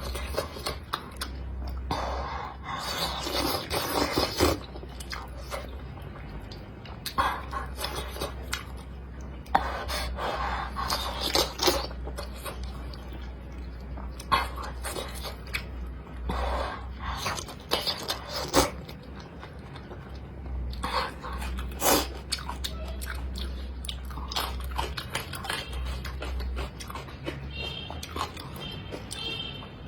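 A person eating close to the microphone: chewing and biting in irregular bursts, with sharp crunches and clicks.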